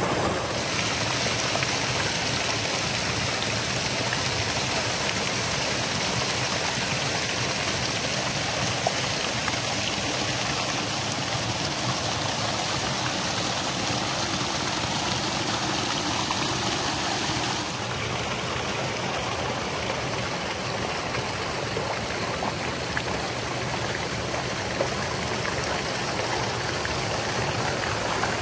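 Creek water cascading over rock ledges: a steady rush of falling water. Its tone shifts slightly about half a second in and again about two-thirds of the way through.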